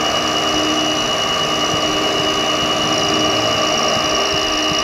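Benchtop mini mill running, its spindle motor giving a steady whine with a constant high tone, while the end mill takes a shallow cut in metal as the table is fed by hand.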